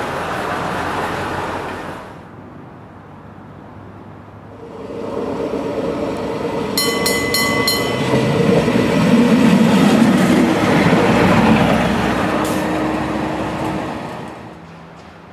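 Dm7 'Lättähattu' diesel railcar train running past on the rails: rolling wheel noise at the start, then a second pass swells to its loudest about 9 to 12 seconds in, with the railcar's low diesel drone under the wheel noise, and fades away. About 7 seconds in there is a brief, rapid ringing signal.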